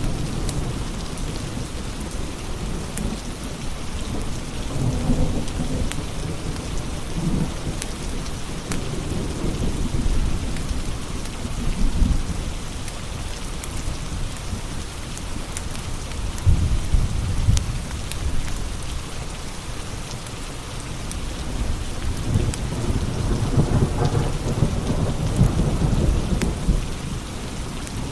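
Steady rain with scattered sharp crackles from a wood fire. Deep low rumbles swell and fade several times, strongest about two-thirds of the way in and again near the end.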